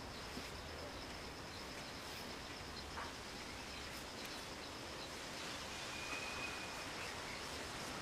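Quiet background hiss with a faint, steady high-pitched tone; no distinct event stands out.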